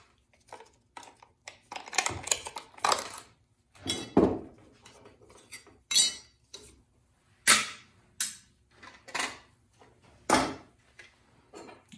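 A series of separate sharp metallic clinks and knocks: a T-handle socket wrench and the small nut, washer and cover plate from a chainsaw's bar cover being handled and set down on a workbench.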